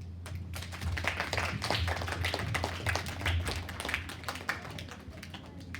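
An audience of schoolchildren applauding: a dense patter of hand claps that thins out near the end.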